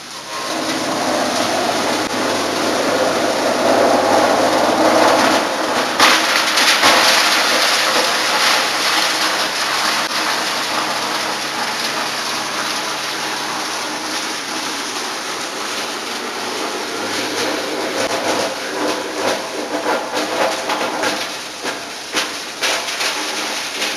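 Belt-driven wood sawdust machine running under load, grinding wood into sawdust: a loud, dense rattling din over a steady machine hum. The noise rises sharply just after the start and turns harsher about six seconds in.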